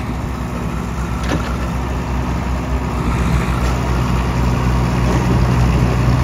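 Heavy diesel engines of a JCB backhoe loader and a combine harvester running under load as the harvester is towed out of deep mud; the engine sound swells about halfway through.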